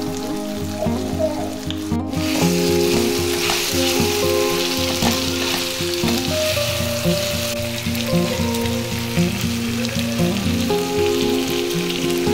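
Beef and tomatoes frying in a pan with a steady sizzle, over background music. The sizzle comes in after a brief cut about two seconds in.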